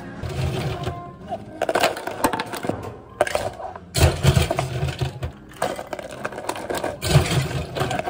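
Ice cubes scooped and dropped into plastic cups, clattering in several bursts.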